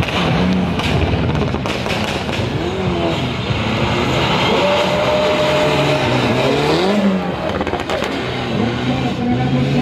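Rally car engine running hard, its pitch rising and falling repeatedly as it revs through gear changes.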